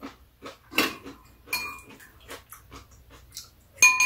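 Metal spoons and chopsticks clinking against ceramic bowls during a meal of soup, with eating and slurping noises between the clinks. The sharpest clink, with a short ring, comes near the end.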